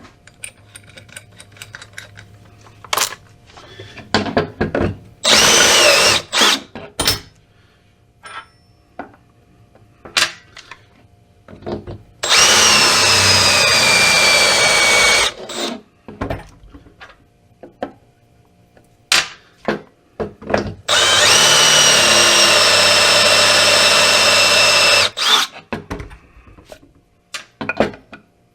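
Power drill running in three bursts, a short one about five seconds in, then about three seconds and about four seconds long, boring holes in a PVC pipe for hose fittings. Each run's whine drops slightly in pitch just after it starts. Between the runs come clicks and knocks of handling the drill and the part.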